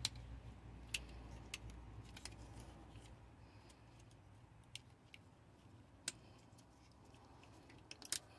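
Faint, scattered plastic clicks and ticks of a wiring-harness connector and its corrugated loom being handled and plugged back together, a few seconds apart. A low hum fades away over the first few seconds.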